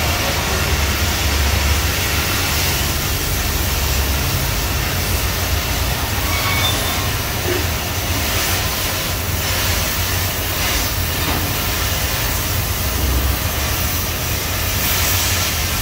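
Oxygen thermal lance burning into the steel wall of a safe: a steady, loud hiss of the oxygen jet with a low rumble underneath.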